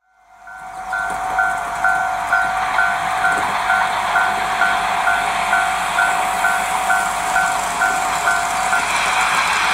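Japanese-style level-crossing warning bell ringing, a two-tone clang about twice a second over a steady hiss; it fades in at the start and stops near the end.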